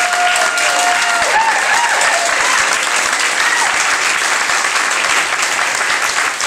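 Audience applauding and cheering, with a long held whoop and a few shorter shouts over the first two seconds or so.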